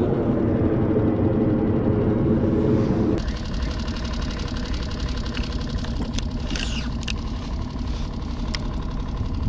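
Small outboard motor on a skiff running steadily. About three seconds in, it drops abruptly to a quieter, lower running. A few light ticks come near the middle.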